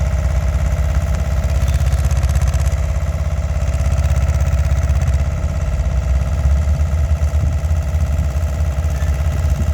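Engine of a 2000 LeeBoy L700ST asphalt paver running steadily with a deep, rapid low pulse, loud and unchanging.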